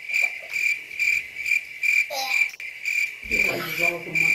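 Cricket chirping sound effect: a high chirp repeating evenly about two and a half times a second, the editor's 'crickets' gag for an awkward silence. Music comes in under it near the end.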